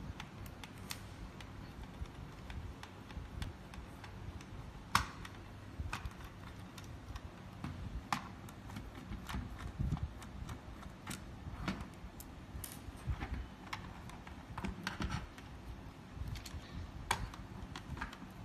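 Irregular small clicks, taps and scrapes of a screwdriver working the screws of a plastic RC transmitter, with the controller knocking and shifting on a wooden table as it is handled. The sharpest click comes about five seconds in.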